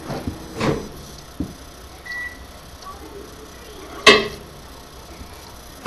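Microwave oven finishing: one short high beep about two seconds in, among several clunks and knocks from its door and kitchen handling.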